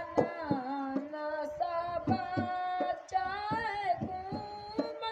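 A single voice singing with long held notes that bend and waver, broken by several sharp strikes.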